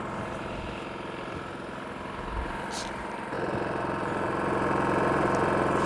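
WEN DF400i inverter generator's 212cc four-stroke air-cooled OHV engine running steadily on propane with no load, just after starting. It grows louder from about halfway through.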